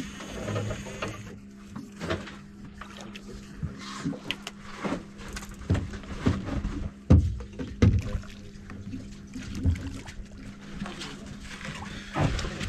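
Fishing boat deck sounds as a fish is reeled in at the gunwale: scattered knocks and clatter over a steady low hum, loudest in two thumps about seven and eight seconds in.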